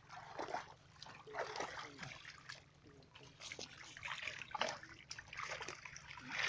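Irregular small splashes and sloshing in shallow muddy water as fish are scooped up by hand into a woven basket.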